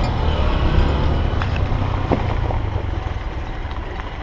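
Honda XR125 motorbike's single-cylinder engine running under way, a steady low hum that eases off after about two seconds, with a few light clicks.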